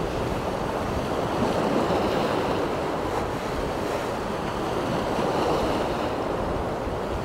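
Sea swell washing and breaking against rocks, a steady rush of surf, with wind buffeting the microphone.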